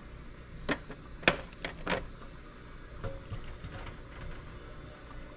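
Glass mason jars, just out of the pressure canner, being set down one by one on a metal baking sheet: four sharp clinks in the first two seconds, the second the loudest, then a fainter knock about three seconds in.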